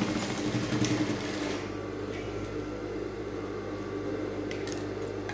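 Sewing machine stitching a seam for about a second and a half, then stopping, leaving a steady hum underneath. A few light clicks come near the end.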